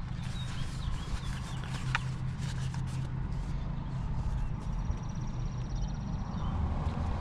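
Short plastic clicks and knocks of hands working at a steering wheel as the airbag connector is plugged in, with one sharp click about two seconds in, over a steady low rumble.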